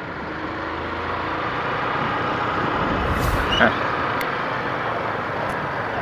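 Riding-along sound of a Honda Fan 150 single-cylinder motorcycle in city traffic: steady engine, road and wind noise, with a brief hiss about three seconds in.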